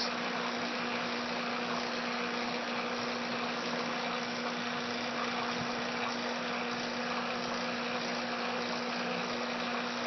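Air-conditioning condenser unit running: a steady hum with a constant low tone over an even rushing hiss.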